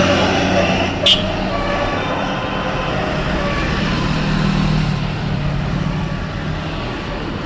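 Safana bus's diesel engine running with a steady low rumble, with a brief sharp high-pitched burst about a second in.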